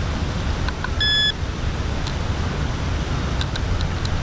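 Wind buffeting the microphone as a steady low rumble, with a single short electronic beep about a second in.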